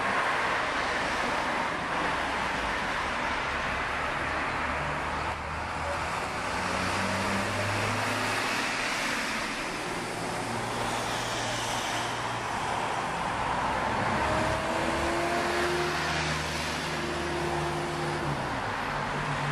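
Highway traffic going by close at hand: a continuous wash of tyre and engine noise from passing cars. Engine hum swells about a third of the way in and again over the last few seconds as a car passes close.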